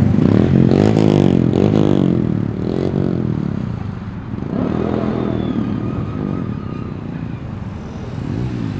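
Sportbike engine revved in a series of throttle blips, the revs rising and falling several times in the first three seconds, again about five seconds in, and briefly near the end.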